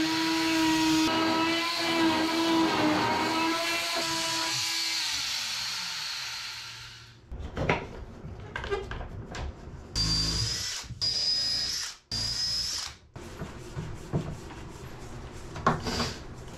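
Oscillating multi-tool cutting into a wooden bulkhead with a steady buzz. About five seconds in it is switched off and winds down in pitch. After that come handling knocks and clicks, with three short whirring bursts about ten seconds in.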